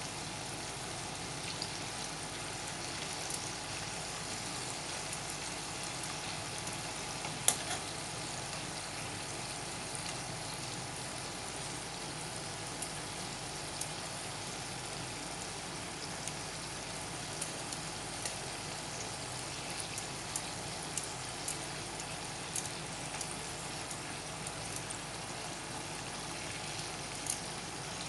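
Marinated chicken pieces shallow-frying in sunflower oil in a pan: a steady sizzle with scattered sharp crackles and clicks, the loudest about seven seconds in.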